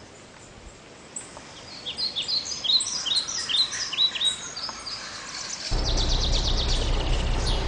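Several birds chirping with many short, falling calls that come in about a second and a half in and crowd together. Near the end a loud, steady low rushing noise starts abruptly under the calls.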